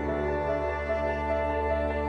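Background music: soft, slow new-age style with sustained pads and a held bass note.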